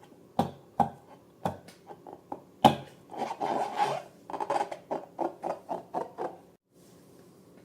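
Close-up handling sounds from slime-making with balloons: a few sharp taps and clicks, then rubbing and scraping in quick strokes, about four or five a second, which stop near the end.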